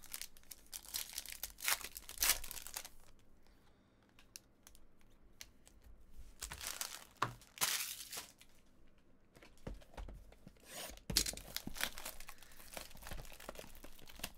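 Crinkling and tearing of trading-card packaging: a foil card-pack wrapper handled, then clear plastic shrink-wrap torn and crinkled off a Bowman's Best hobby box. It comes in three spells of rustling, with a quieter gap about four seconds in.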